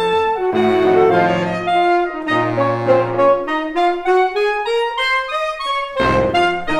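Saxophone ensemble playing sustained chords in several parts over held low notes; in the middle one line climbs slowly, and a fuller chord comes in near the end.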